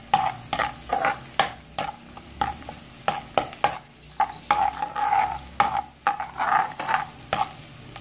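A spatula scraping and knocking against a wok and its wire mesh insert as chopped garlic is stirred in hot oil, over a low sizzle of frying. The strokes come quickly and irregularly, and the stirring stops near the end.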